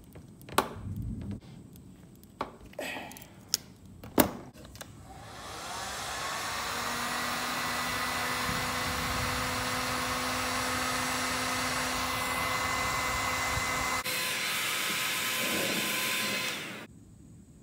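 A few sharp clicks and snaps of a wire crimping tool crimping bullet connectors onto wires. Then an electric heat gun runs steadily, a loud rushing blow with a faint whine, aimed at the wire joint, and it cuts off suddenly near the end.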